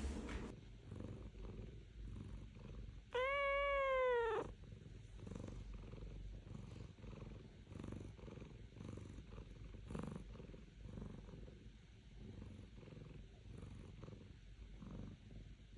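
Domestic cat purring steadily, with one drawn-out meow about three seconds in that rises and then falls in pitch and is the loudest sound.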